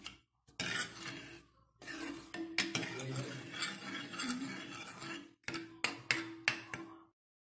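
A stainless steel spoon stirring buttermilk in a metal pan, scraping against the pan's bottom and sides. There is a long spell of continuous stirring, then four or five short separate strokes near the end.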